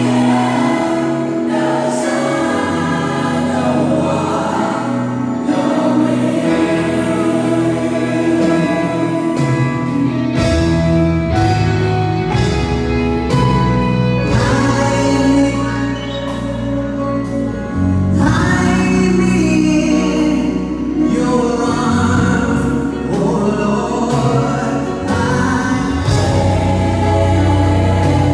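Live gospel worship singing by a group of singers at microphones, amplified through a PA loudspeaker. A deep bass accompaniment joins about ten seconds in.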